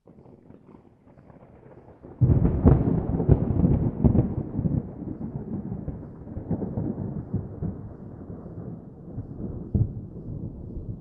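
Thunder rumbling: a sudden loud crack and deep rumble about two seconds in, rolling on and dying away slowly with crackles.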